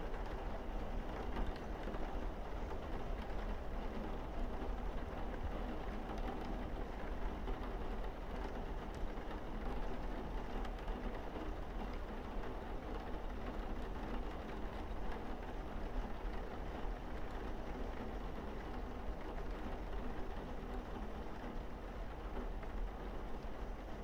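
Steady rain falling on a roof and windows, an even unbroken patter over a constant low rumble.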